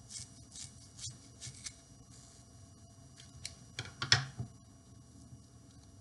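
Scissors snipping through the ends of baling twine, several short crisp cuts in the first two seconds, followed by a cluster of clicks and a sharper knock just after four seconds as the scissors and twine are handled on the table.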